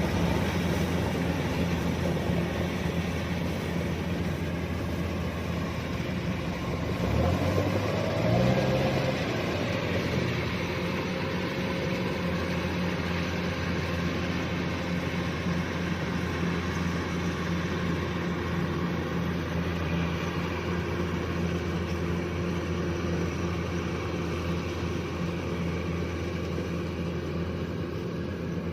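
Kubota DC-105X combine harvester running steadily at work, its diesel engine droning with the hum of the machinery. About seven to nine seconds in, the engine pitch briefly rises and falls again.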